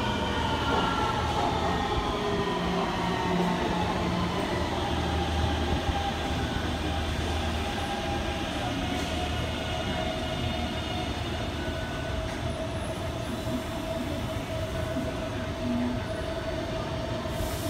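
Taipei Metro C321 electric train pulling into the station and braking to a stop. Its motor whine falls in pitch over the first few seconds, then the standing train gives a steady hum.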